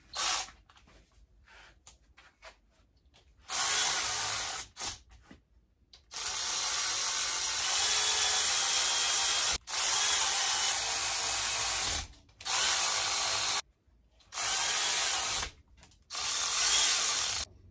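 Handheld cordless power tool running bolts down snug on an outboard powerhead, in six steady runs of one to three and a half seconds with short pauses between. A few faint clicks come before the first run.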